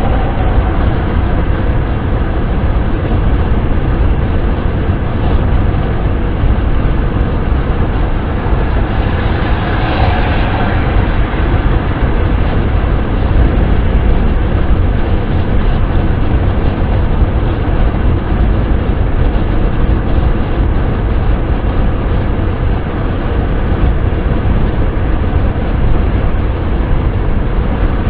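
Steady wind and road noise of a car being driven, a deep, even rumble with a brief swell about ten seconds in.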